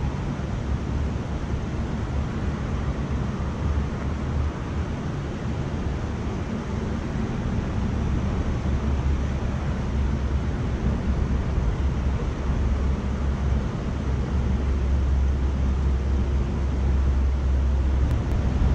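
Steady rush of a shallow river riffle running over rocks, with wind rumbling on the microphone.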